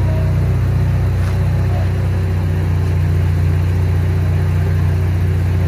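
A car engine idling steadily, a low, even hum.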